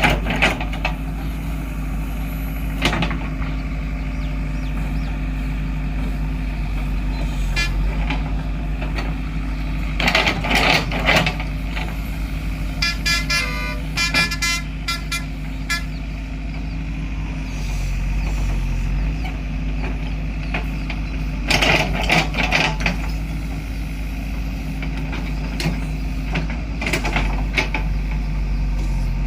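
Diesel engine of a JCB 3DX backhoe loader running steadily under work, with several bursts of clanking and scraping from the digging gear. A brief high pulsed beeping sounds about halfway through.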